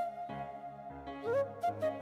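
Background music: a held, gliding flute melody over low bass notes, with a few light percussive taps between one and two seconds in.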